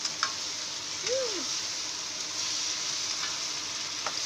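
Sliced beef and white onion sizzling in a hot, sauced frying pan while being stirred and turned with a spatula. The spatula clicks against the pan a few times, just after the start and near the end.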